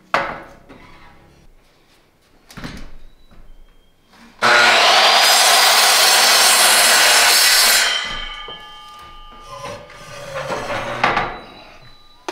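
Power miter saw cutting through a 2x4: a few knocks as the board is set in place, then a loud cut of about three seconds, then the blade spinning down with a fading whine, and more knocks as the board is handled.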